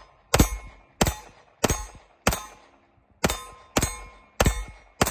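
Browning BDM 9mm pistol firing a string of about eight shots, a little over one a second, with a slightly longer gap near the middle. Each shot is a sharp crack with a short echo dying away.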